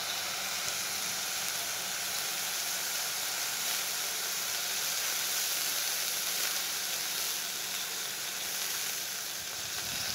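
Sliced tinda with tomato-chilli masala sizzling steadily in oil on a tawa under a steel lid.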